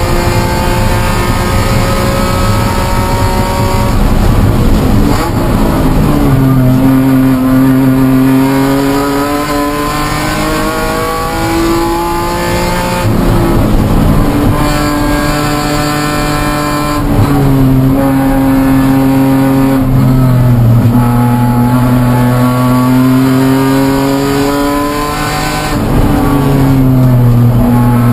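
BMW E46 M3 race car's inline-six engine under hard acceleration, heard from inside the stripped cabin. Its pitch climbs steadily and drops sharply about four times as the car shifts and lifts through a racing lap.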